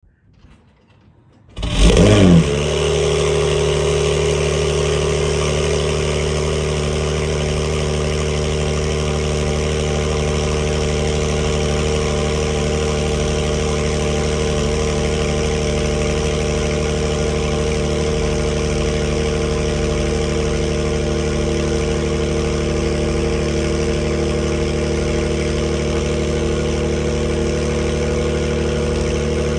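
Acura NSX Type S twin-turbo V6 starting about a second and a half in, flaring briefly on start-up, then settling into a steady idle. The exhaust note comes through aftermarket RedStar catted downpipes and a quad-tip exhaust.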